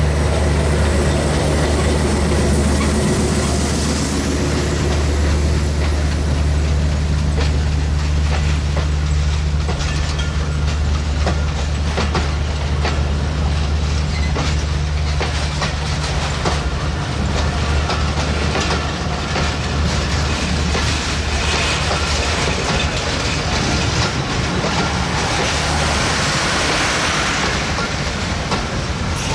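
Broad gauge passenger train running past, its wheels clattering over the rail joints above a steady low rumble.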